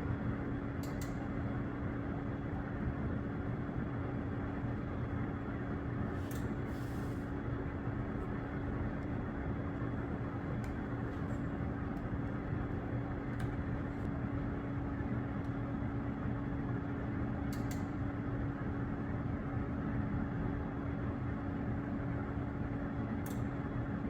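Steady machinery hum: a constant low drone with a noisy rush over it, and a few faint clicks scattered through.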